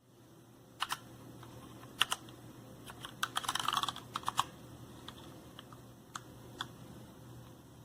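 Keys on a Redragon K556 mechanical keyboard being pressed: scattered single clicks, with a quick flurry of typing about three to four and a half seconds in.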